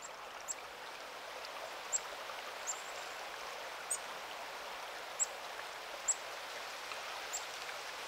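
Black-capped chickadees giving thin, very high sip calls, short and slightly falling, about one a second, over the steady rush of running river water.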